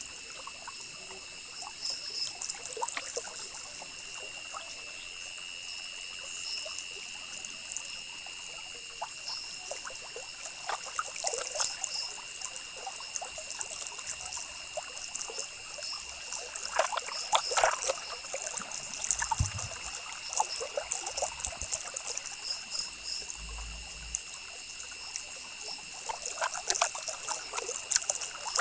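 Ballpoint pen scratching across paper in quick, irregular strokes, heaviest in a few clusters, over a steady high-pitched background whine.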